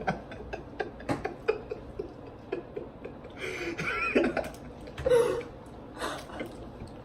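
Eating sounds close to the microphone: chewing and wet mouth clicks, broken by a couple of short throat or vocal noises, the first about three and a half seconds in and another about five seconds in.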